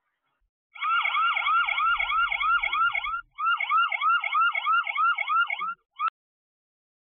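Security camera's built-in alarm siren sounding: rapid electronic falling whoops, about four a second, starting about a second in. It breaks off briefly a little past three seconds, resumes, and stops near six seconds with one short final burst.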